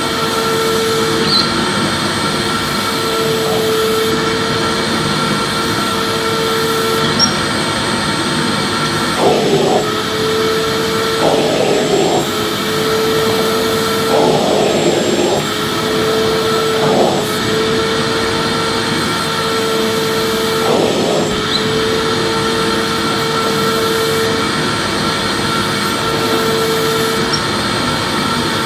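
Vacuum cleaner running steadily: a constant rushing noise with a steady hum in it. Through the middle the hum wavers briefly about five times.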